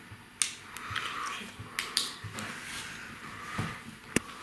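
A handful of sharp clicks and taps at irregular intervals, with one of the sharpest near the end.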